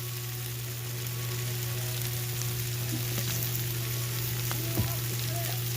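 Pork chops and steaks sizzling on a Blackstone 22-inch griddle, a steady frying hiss, with a steady low hum underneath.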